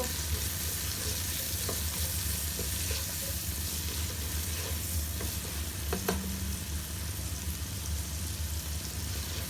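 Chopped onions sizzling steadily as they fry in butter and ginger-garlic paste to soften, with a spoon stirring and clicking against the pan now and then. A steady low hum runs underneath.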